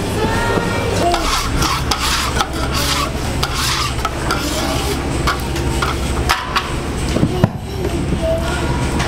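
A metal scraper rasping and scraping in short strokes across a steel flat-top griddle as it is cleaned, over a steady low hum.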